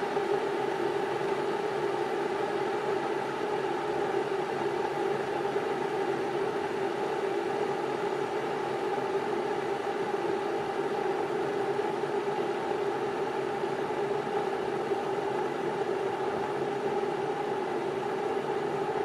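Electric kettle boiling water: a steady rushing noise that stays even throughout.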